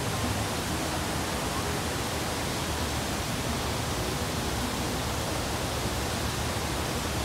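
Artificial waterfall pouring off a bridge into a canal: a steady rush of falling water.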